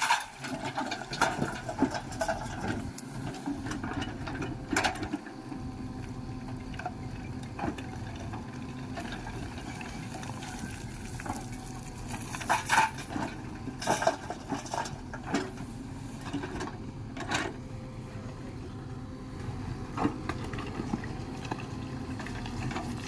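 Diesel engine of earthmoving machinery running steadily, with occasional sharp knocks and clanks.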